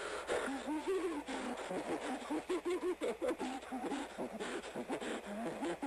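Distorted, garbled voice-like warbling whose pitch wavers up and down several times a second, over steady tape-like hiss.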